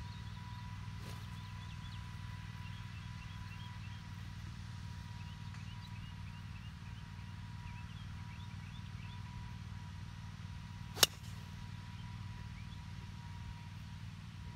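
A golf driver striking a teed ball: one sharp crack about eleven seconds in, over a steady low background rumble.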